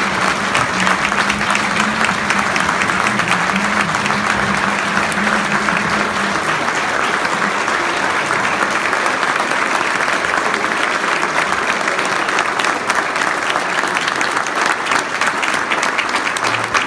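A room full of people applauding, dense steady clapping throughout.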